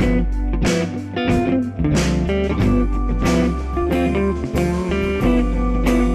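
Background music: a guitar-led instrumental with a steady beat and a heavy bass line.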